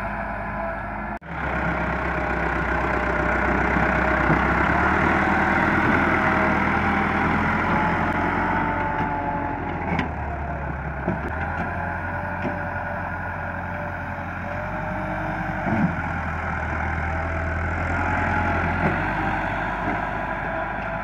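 Massey Ferguson 375 tractor's diesel engine running steadily under load as it drags a land-levelling blade through loose soil. The sound cuts out sharply for a moment about a second in, and a few short clanks come through in the second half.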